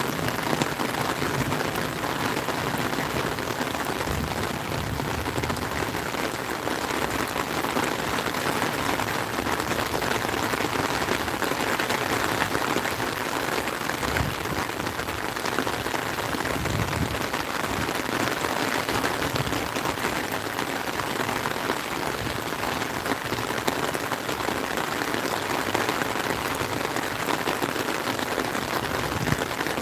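Heavy rain falling steadily, drumming on an umbrella overhead and hitting the lake surface.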